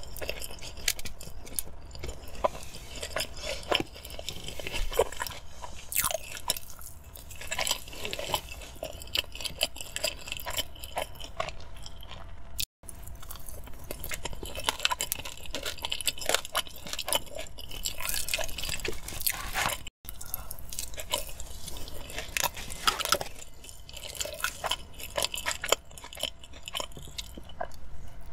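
Close-miked eating sounds: wet chewing, smacking and biting of sauce-covered fries, with some crunchy bites. The sound cuts out for an instant twice, about halfway through and two-thirds of the way in.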